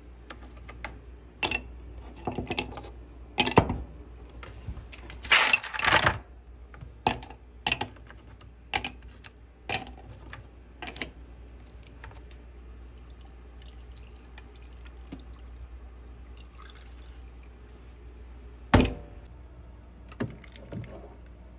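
Ice cubes being taken out of a plastic ice cube tray and dropped into a ceramic mug: a series of sharp clinks and knocks, with a longer rattling stretch about five seconds in. One louder knock comes near the end.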